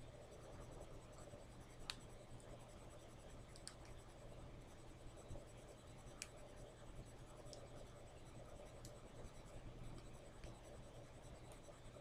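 Faint scratching of a hook pick raking over the pins inside a Master Lock padlock's keyway while a tension wrench holds the plug, with a handful of light, sharp clicks spread out every couple of seconds.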